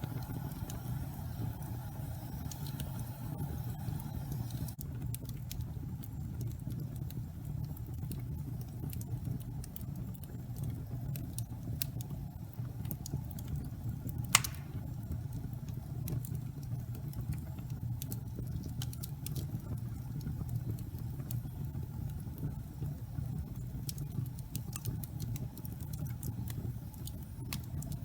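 Wood fire burning in a fireplace: a steady low rumble of the flames with scattered small crackles and one louder pop about halfway through.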